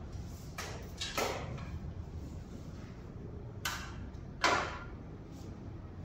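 Clunks and rattles of an electric fat-tire bike being flipped upright and set down on its wheels on a hard floor. There are four knocks in two pairs, about a second in and near four seconds in, and the last is the loudest.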